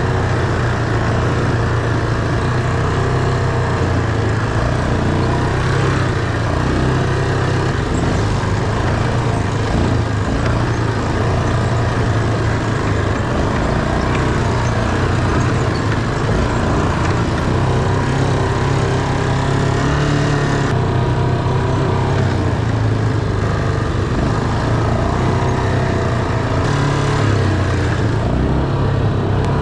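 ATV engine running steadily while riding, its pitch wavering a little as the throttle changes.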